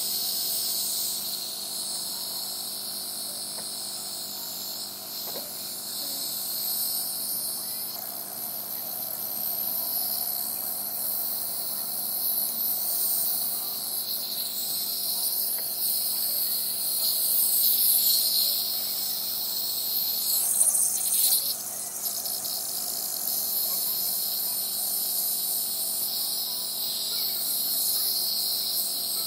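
A steady, high-pitched insect chorus, with a brief noisy rustle about two-thirds of the way in.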